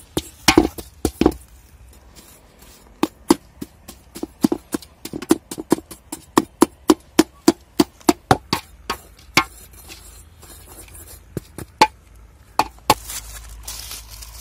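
A metal ladle stirring salt in an aluminium pot, knocking and scraping against the pot in a run of sharp clicks, at about two a second for much of the time.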